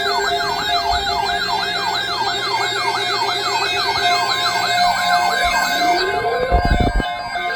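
Electronic siren-style alert alarm from weather alert radios going off for an incoming alert: a fast, repeated yelp of falling sweeps, about three a second, over a steady tone, joined near the end by a slower rising wail. A few low thumps sound near the end.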